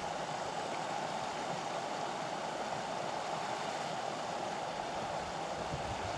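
Shallow stream rippling over stones in small riffles: a steady, even rush of water.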